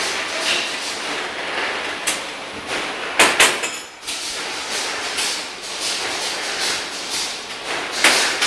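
Spiral paper tube winding machine running: a steady mechanical clatter with repeated sharp metallic knocks, the loudest a pair about three seconds in and another near the end.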